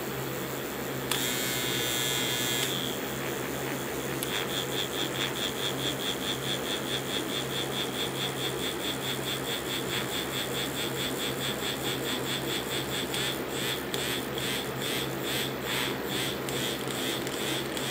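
Two silver bullet vibrators of a 5-speed dual bullet set buzzing in the hand. They are run through their settings on the wired remote: a steady buzz, then from about four seconds in a rapid, even pulsing that changes pattern again near the end.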